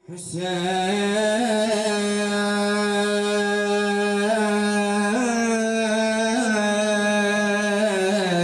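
A male reciter's voice holding one long chanted note of a Shia mourning lament (nai), steady in pitch with a few brief vocal turns, leading into the sung name 'Hussein'.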